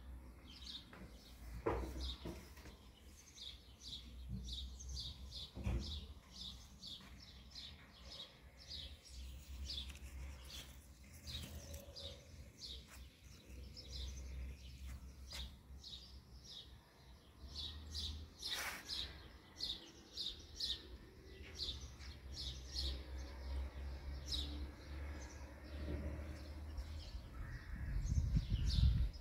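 Small birds chirping, a steady run of short high chirps a few times a second. Underneath is a low rumble that grows louder near the end, with a few sharp clicks.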